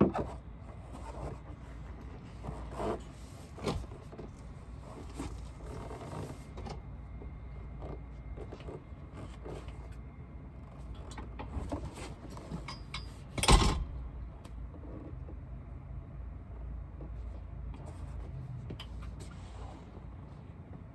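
Scopema RIB Altair folding seat bed being unfolded into bed mode: scattered clicks and knocks of its latches and hinged panels, with one loud clunk about two-thirds of the way through.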